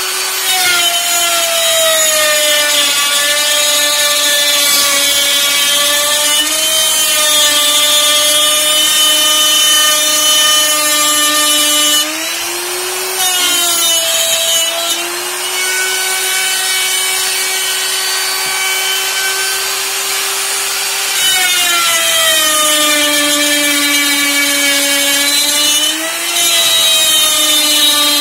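Electric plunge router on a circle-cutting jig, its bit plunged into a wooden board and cutting a round hole. The motor's whine sags in pitch under the load of the cut, and rises again about 13 seconds in and again near the end, when the load eases.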